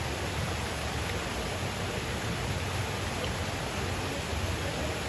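A waterfall rushing steadily.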